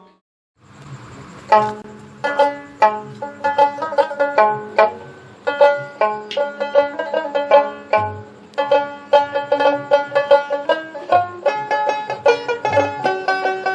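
Background music: a plucked string instrument playing a quick tune of many short notes, coming in about a second and a half in after a brief silence.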